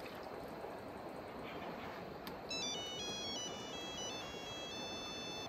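A mobile phone ringtone: a stepping electronic melody that starts about two and a half seconds in, signalling an incoming call, over a steady faint background hiss.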